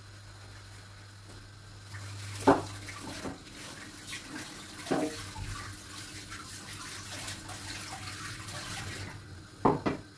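Kitchen tap running into a sink for about seven seconds, then shut off, with sharp knocks of things handled in the sink: the loudest about two and a half seconds in, others at three and five seconds, and two close together near the end.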